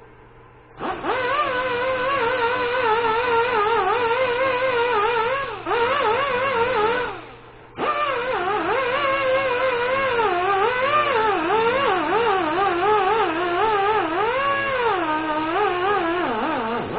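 Die grinder spinning a wire wheel to buff a rubber inner tube before patching: a whine whose pitch wavers up and down as the wheel is pressed on and the speed is feathered at low RPM. It stops briefly about seven seconds in, then starts again.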